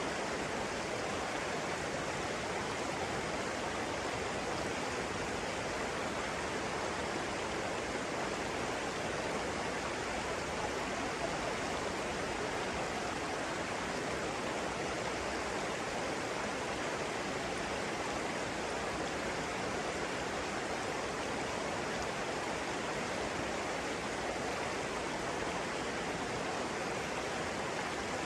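Running water, a steady, unbroken rush.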